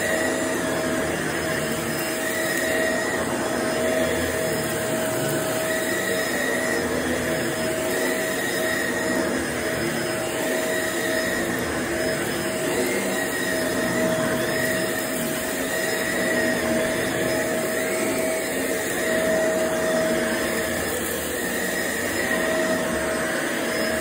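Shark vacuum cleaner running steadily over carpet: a constant motor hum with a held whine that swells gently every couple of seconds.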